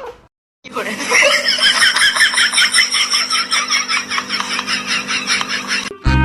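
A person laughing hard, a long run of quick pulsing laughs, about five a second. Music cuts in loudly near the end.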